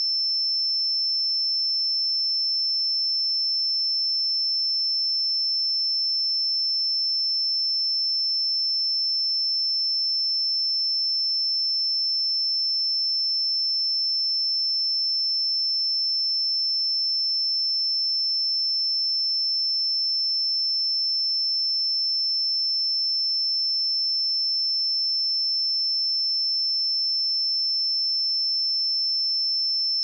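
A pure 5318 Hz sine-wave test tone, one steady high-pitched whistle at constant level with no other sound.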